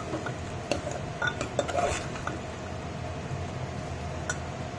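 Metal spoon scraping and clinking against the inside of a pressure cooker as potatoes are stirred into tomato puree. The knocks are scattered and come mostly in the first two seconds, with one more near the end.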